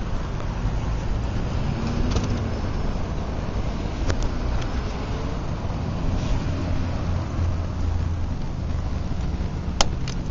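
Steady low rumbling background noise with a few faint clicks, and one sharper click near the end.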